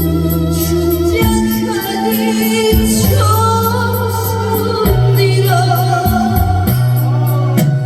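A young singer sings a Korean trot song with vibrato over a recorded backing track, which has a bass line and a steady ticking beat.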